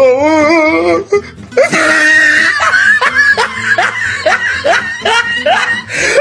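A person's voice holding a wavering, sung-like note for about a second, then a long string of short laughs, giggling, that cuts off suddenly at the end.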